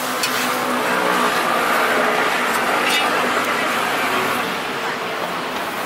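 A motor vehicle passing by on the street, its engine noise swelling and then easing off. There are a couple of short metal clinks from a spatula and ladle on the pancake griddle.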